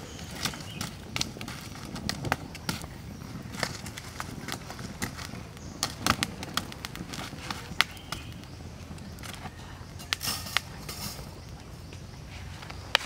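Small wood fire crackling, with irregular sharp pops and snaps, mixed with knocks as burning sticks are pushed into the fire under a rebar stand and a wire grill grate is set on it.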